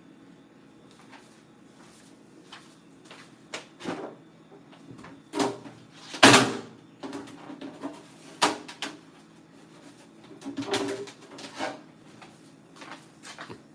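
Refrigerator drawers and shelves being handled: a series of knocks and clatters, the loudest about six seconds in, over a steady low hum.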